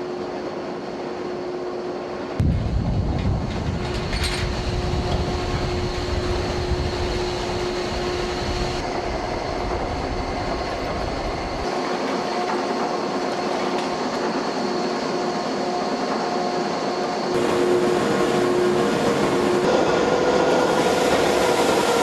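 Drill-floor machinery of the drilling vessel Chikyu running: a steady mechanical din with several steady whines. A deep rumble joins about two seconds in and drops out near the middle, and the din grows louder with a new hum about three quarters of the way through.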